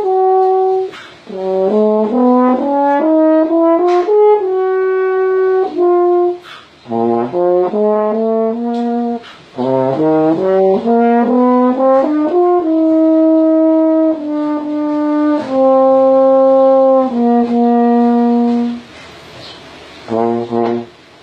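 A 1930s Pan American French horn, a copy of the Conn 6D, played in phrases: a held note, quick runs of notes climbing and falling, then several long held notes, with a short pause before a brief final phrase near the end.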